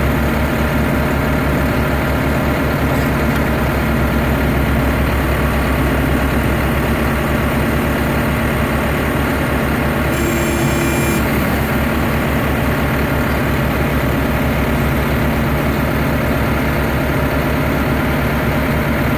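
Tractor-mounted tower yarder's engine running steadily with an even low pulse. About halfway through, a short high tone sounds for about a second.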